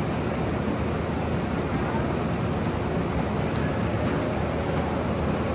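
Steady low mechanical rumble, like a running vehicle or aircraft, that swells in at the start and holds level throughout.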